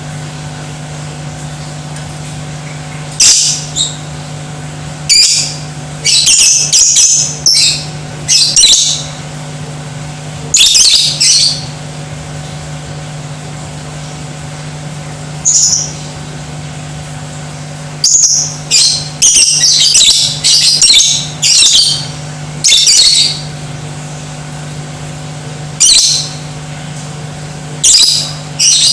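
Lovebird calling in loud, high, shrill bursts of under a second each, irregularly spaced, some coming in quick runs, over a steady low hum.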